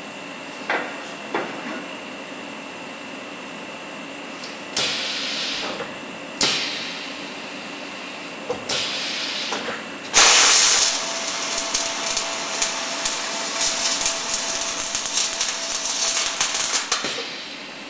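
Torque converter hub welding machine at work: a few clunks early on, then short hisses about five, six and a half and nine seconds in. From about ten seconds the welding arc crackles and hisses steadily for some seven seconds over a faint steady hum, and stops shortly before the end.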